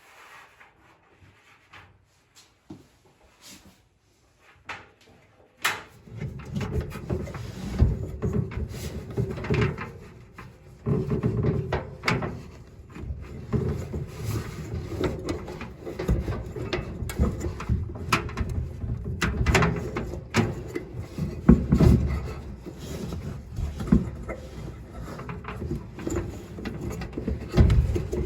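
Hands working a dryer's drive belt into place around the drum and pulleys inside the metal cabinet: a few faint clicks, then from about six seconds in a steady run of rubbing, clatter and sharp knocks.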